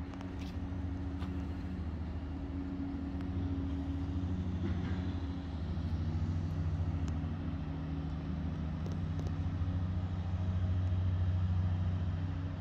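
A steady low engine drone at an even pitch, a little louder near the end.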